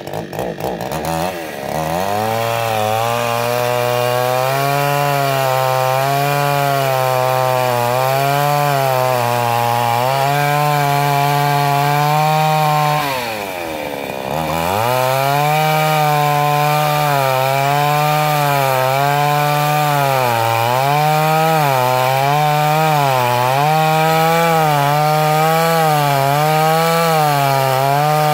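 Gasoline chainsaw ripping lengthwise along a pine plank to cut a board. The engine runs at high revs, its pitch sagging and rising as the chain bites. About 13 seconds in the revs drop briefly, then climb back up.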